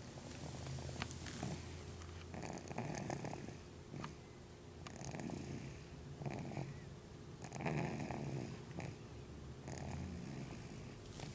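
Snoring: a rasping, wheezy breath about every two seconds, each with a hissy edge over a low rattle.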